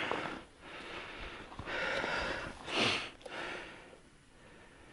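A person breathing and sniffing close to the microphone: a few short hissing breaths, the loudest about three seconds in, then quiet.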